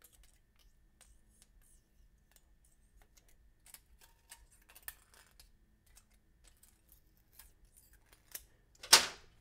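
Faint scrapes and light clicks of a thin steel feeler gauge being worked under a ground straight edge along a metal manifold flange, checking the flange for flatness. A sharp metal clank with a short ring comes near the end.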